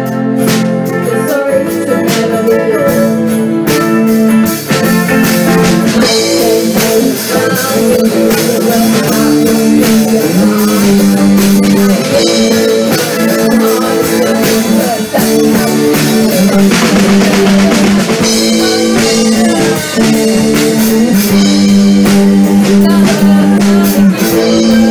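Live band playing amplified rock music: electric and acoustic guitars over a drum kit with a steady beat.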